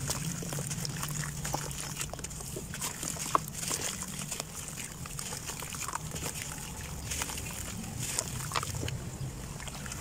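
Soaked red dirt block crumbling and squelching as hands crush and knead it in a tub of muddy water, with gritty crackles and wet sloshing and one sharp click about three seconds in. A steady low hum runs underneath.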